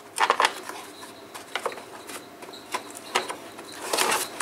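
Plastic heater-box housing parts of a Mercedes W123 being handled and pressed together: a series of irregular clicks and knocks, with a denser rattle of them near the end.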